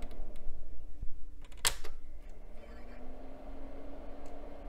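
A vintage PC tower switched on with a click of its front power switch, then a low motor hum rising in pitch as the machine spins up and settles to a steady tone.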